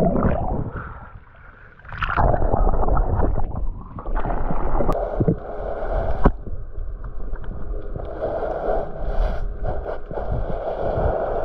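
Muffled underwater water noise around a submerged camera: gurgling bubbles at first, then a steady low wash along a wooden boat's hull, with a couple of sharp knocks around the middle.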